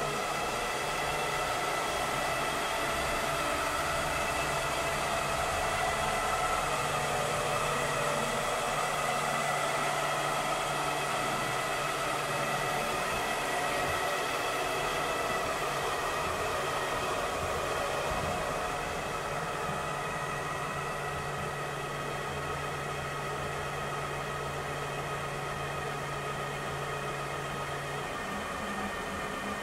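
Vileda robotic vacuum cleaner running: a steady whir of its suction fan with a low hum that starts and stops several times. The whir turns slightly quieter about two-thirds of the way through.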